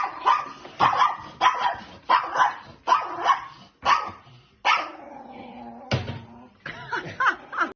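A dog barking over and over, about two barks a second, the barks growing sparser in the last few seconds.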